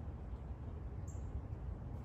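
Backyard outdoor ambience: a steady low rumble with one short, high chirp about a second in.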